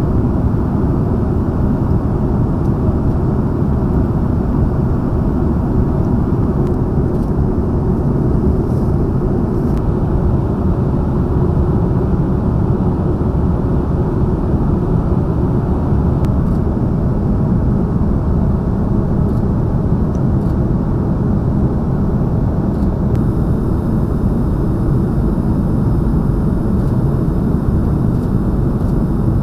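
Steady low rumble of engines and rushing air heard inside the cabin of a KC-30A (Airbus A330 MRTT) tanker in flight.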